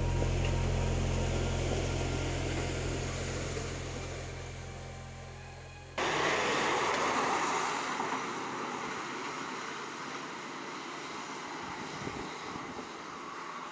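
A low held music chord fading out; about six seconds in, a sudden cut to the steady rushing noise of a vehicle driving, slowly fading away.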